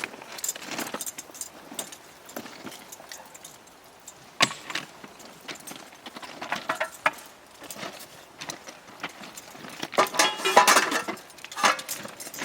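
Steel tools clinking and knocking against metal during railroad thermite welding work: scattered sharp metallic taps, one hard strike about four seconds in, and a dense run of ringing clanks near the end.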